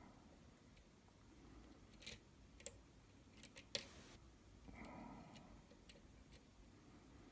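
Faint metallic clicks and ticks of a lock pick and tension wrench working the pins of a Falcon pin-tumbler lock, with a cluster of sharper clicks about two to four seconds in.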